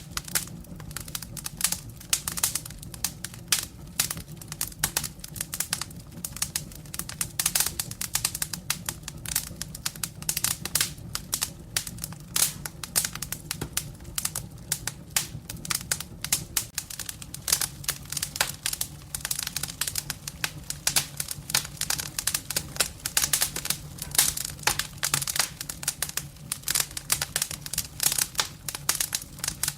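Firewood burning in a fireplace: dense, irregular crackling, many sharp clicks a second, over a steady low hum.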